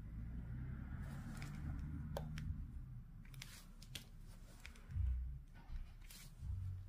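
Scattered small clicks of tweezers and resin diamond-painting drills tapping onto the canvas, with low handling bumps in between.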